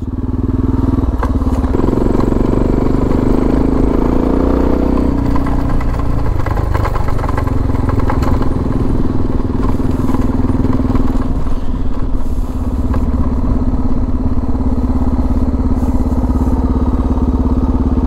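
Suzuki DR650's single-cylinder four-stroke engine running as the motorcycle is ridden; it revs up about two seconds in, eases back after about five seconds, then runs steadily at cruising speed.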